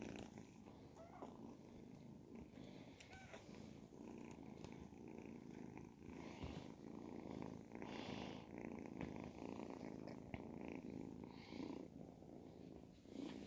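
Ragdoll kitten purring, a faint, steady low rumble.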